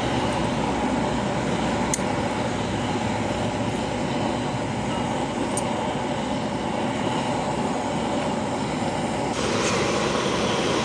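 Steady mechanical rumble and hiss, with a light clink about two seconds in and another past the middle.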